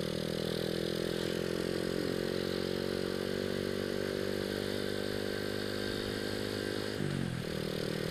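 Honda Astrea Grand motorcycle engine running at a steady cruise through its hollowed-out (re-cored) original Supra X 125 FI muffler. The engine note dips briefly about seven seconds in, then steadies again.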